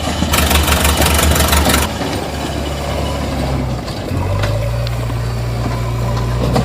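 An engine running steadily, with a hiss about half a second in that lasts over a second, and a steadier, stronger hum from about four seconds in.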